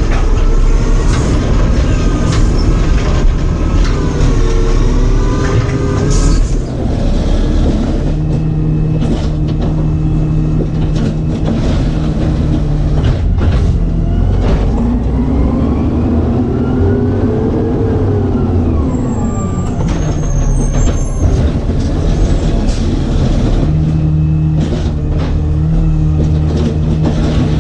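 Automated side-loader garbage truck's diesel engine running, revving up and falling back about halfway through, with repeated knocks and clanks.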